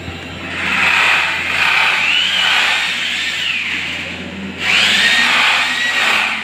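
Electric drill boring holes for mounting toilet cubicle dividers, its pitch wavering under load. It stops briefly about four and a half seconds in, then starts again.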